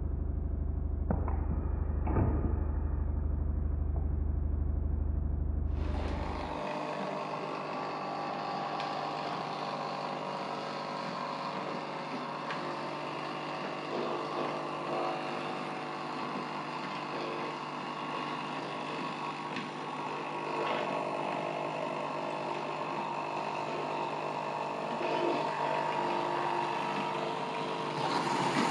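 Märklin H0 electric model locomotive running slowly on metal track, pulling coaches. Its motor whines in several steady tones over the rumble and rattle of its wheels. For about the first six seconds there is only a low hum with two faint clicks; the running noise comes in about six seconds in.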